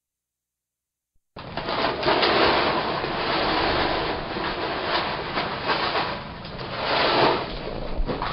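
A cat crunching dry kibble: a dense, crackly chewing noise that starts about a second in and carries on.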